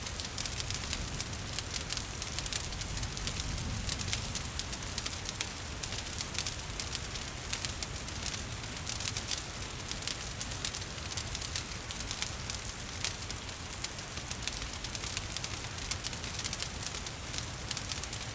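Wood fire crackling with dense, rapid small pops and snaps, over a steady hiss of gentle rain.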